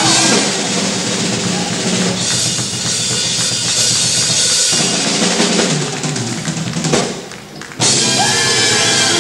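Horns and trumpets playing a blues jam over marching-band snare and bass drum. The playing thins out and drops away about seven seconds in, then the whole band comes back in at full level.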